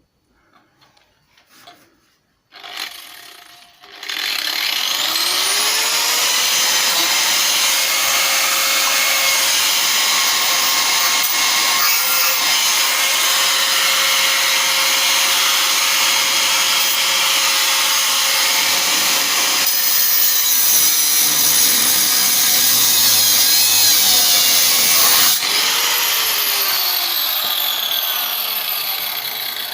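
Angle grinder spinning up about four seconds in and cutting into car body steel for some twenty seconds, then released and winding down with a falling whine near the end.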